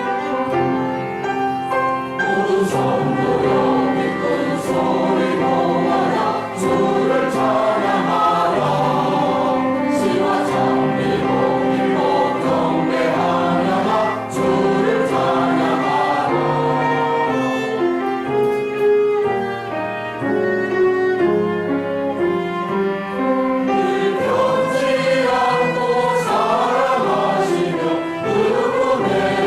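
Church choir singing an anthem with instrumental accompaniment.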